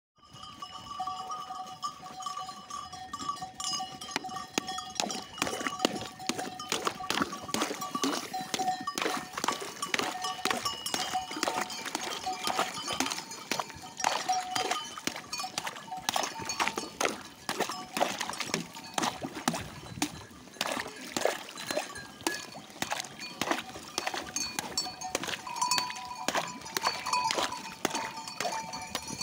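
Sheep bells clanking and ringing all through. Over them come repeated knocks and splashes from a wooden stick jabbing at a stone water trough, breaking up the thin ice so the sheep can drink.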